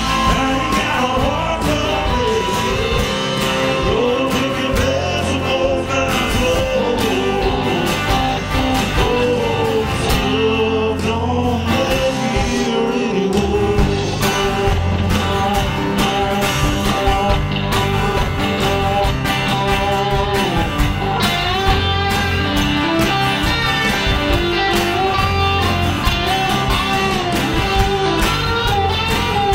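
Live band music: a man singing over a strummed acoustic guitar, with an electric guitar and bass guitar playing along.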